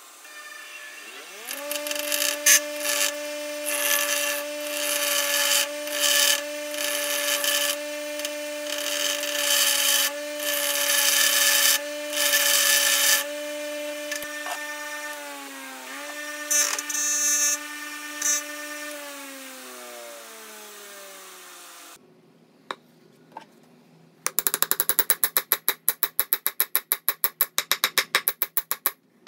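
Bench grinder motor starting up to a steady hum, with repeated harsh grinding as the steel head of a sledgehammer is pressed against the stone wheel. About sixteen seconds in the motor is switched off and its hum falls away as the wheel spins down. Near the end there is a fast run of short scraping strokes, several a second.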